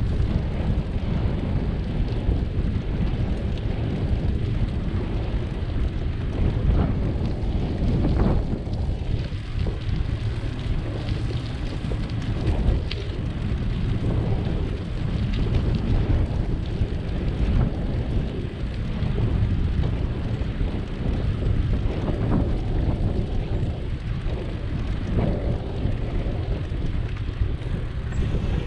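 Wind buffeting the microphone of a camera riding on a moving bicycle, a steady low rumble mixed with road noise, with a few faint clicks and rattles.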